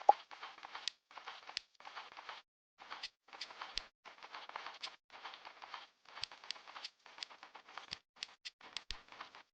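Small plastic building bricks being handled: crackly rustling with sharp clicks, in short spells that start and stop abruptly.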